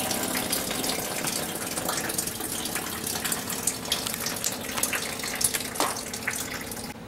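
Water draining out of the freshly cut end of a copper water main pipe and splashing steadily, slowly easing. This is the water left in the long line running out after the supply was shut off, with no pressure behind it.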